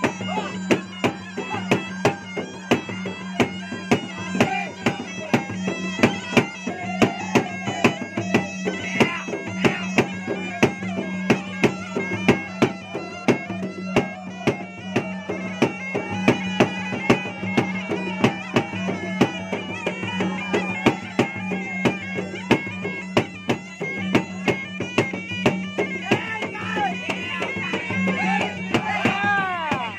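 Makassar gendang drums beaten in a fast, even rhythm under a reed pipe that plays a continuous, piercing, bagpipe-like melody over a steady drone.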